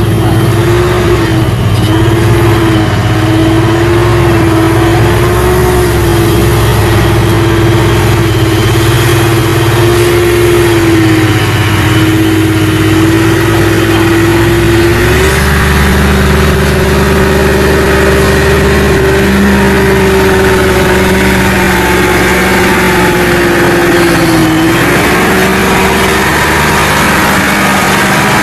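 Heavy diesel truck engine running hard under load, a steady drone that wavers slightly and steps up in pitch about halfway through, as a loaded truck labours through deep mud.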